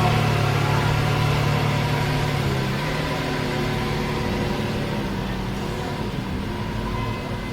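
Lamborghini Veneno's V12 engine running steadily at low revs. Its tone steps down slightly about three seconds in, and the sound slowly fades.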